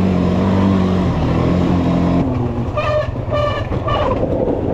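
Quad bike (ATV) engine running under throttle, its steady note dropping about two seconds in as the revs fall.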